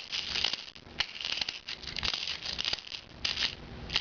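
Crosman 6 mm plastic BBs rattling and clicking in irregular little clusters as they are loaded into a Double Eagle M3 multi-shot airsoft shotgun.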